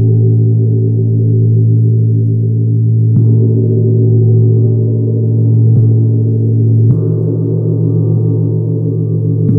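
Tibetan meditation gong (model 70-II) sounding a deep, sustained, shimmering drone. It is struck gently four more times, about three, six, seven and nine and a half seconds in, so the ringing never dies away and each strike brightens the overtones.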